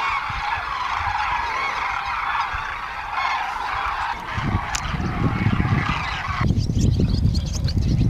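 A large flock of common and demoiselle cranes calling in flight, many trumpeting calls overlapping into a dense, continuous chorus. A low rumble joins about four seconds in, and about six and a half seconds in the chorus cuts off suddenly, leaving the rumble and a few scattered calls.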